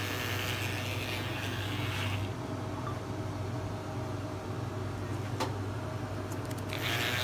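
Electric hair clippers humming steadily. Their brighter buzz drops away about two seconds in and comes back near the end, with a single click in between.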